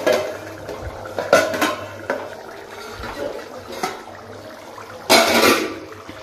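Stainless steel lid being lifted off a steel kadai with a ladle: several metal clinks and scrapes, with a louder, longer scraping clatter about five seconds in as the lid is moved aside. Mutton curry simmering in the open pan underneath.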